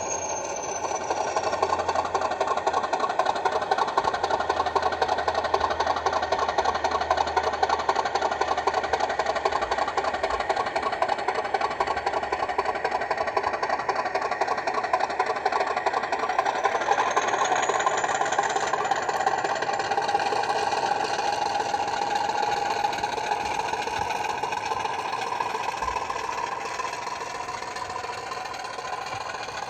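Model Class 50 diesel locomotive's sound decoder playing the English Electric 16-cylinder engine through the model's small speaker: a steady, thrashing, rattly engine note. A high whistle rises briefly about halfway through, and the sound grows quieter toward the end.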